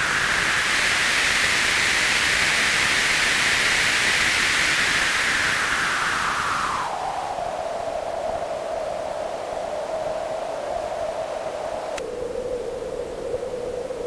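White noise played through a modified Dunlop GCB-95 Cry Baby wah pedal: a steady hiss with one resonant peak that sits high and bright, then sweeps down to a lower tone about seven seconds in as the pedal is rocked back. Near the end a single click, and the resonance steps a little lower, as the rotary switch selects a different capacitor in the pedal's LC filter.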